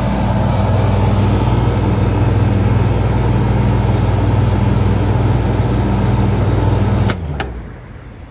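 Walk-in cooler condensing unit running with a steady low hum while its compressor pumps the refrigerant down into the condenser and receiver. About seven seconds in it clicks off and winds down with a falling hum, stopping before the pump-down is finished.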